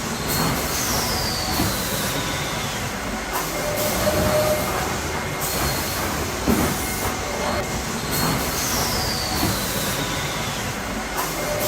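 Sawmill machinery running: a dense, steady mechanical clatter and rumble, with a high whine that falls in pitch, once about a second in and again about eight seconds in.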